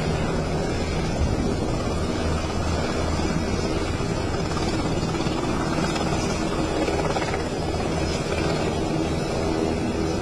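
Helicopter running steadily, a loud, even low hum with rotor and engine noise.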